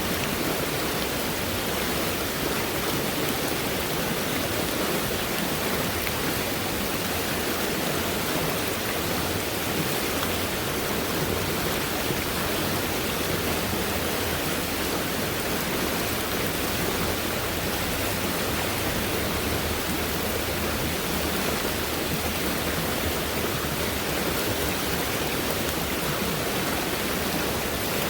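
Fast-moving stream running high after heavy rainfall, its water rushing in a steady, even roar with no breaks.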